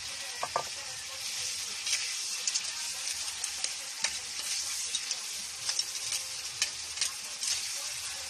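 Shrimp sizzling in a hot frying pan while being stirred, the utensil scraping and tapping against the pan many times over a steady high hiss. A short metallic ring about half a second in as the pan's lid comes off.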